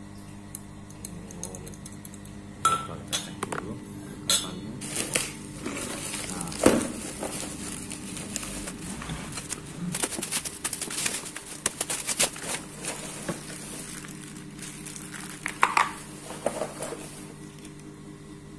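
Bubble wrap and plastic packaging crinkling as small tricycle parts are unwrapped by hand, with irregular clicks and clinks of hard plastic and metal parts knocking together, over a steady background hum.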